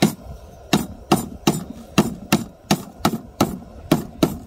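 A large kitchen knife chopping through a stalk onto a wooden cutting board. It makes about a dozen sharp chops in a steady rhythm, two to three a second.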